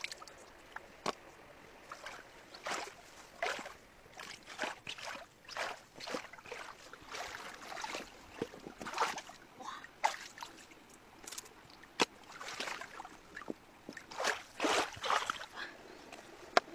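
Shallow stream water sloshing and splashing in short, irregular bursts as hands grope through it and wading boots move, with a few sharp clicks.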